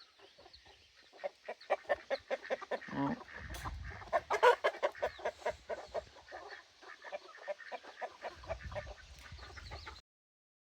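Chickens clucking, a steady run of short repeated clucks a few per second, which cuts off suddenly near the end.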